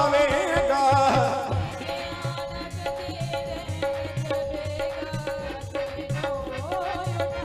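Punjabi devotional worship song: a sung line ends about a second in, then the band plays on without singing, with a steady drum beat under a long held note.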